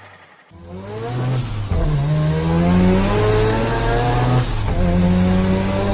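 Turbocharged car engine accelerating hard, its revs climbing with a high turbo whistle above. About four and a half seconds in, the revs and the whistle drop briefly at a gear change, then both climb again.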